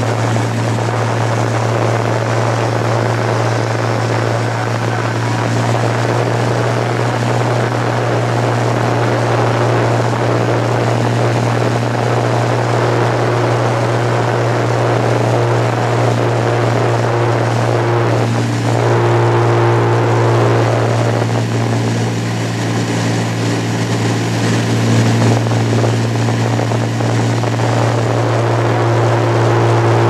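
Single-engine light aircraft's piston engine and propeller droning steadily, heard inside the cabin as the plane lands and rolls out on a dirt airstrip. The engine note changes about two-thirds of the way through.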